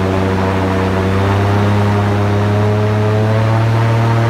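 V8 airboat engine and its big rear fan running steadily under way, with the pitch rising slightly in the second half.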